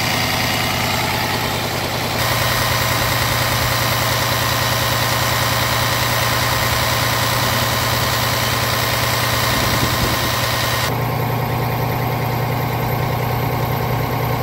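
Scania R 450 Euro 6 truck's 13-litre inline-six diesel idling steadily, heard close up in the open engine bay. The sound shifts abruptly about two seconds in and again near the end, where it turns duller.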